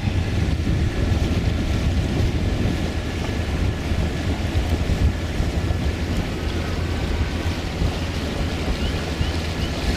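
Steady low drone of a 1978 Islander Bahama 30 sailboat's inboard engine running under way, with wind noise on the microphone and water washing past the hull.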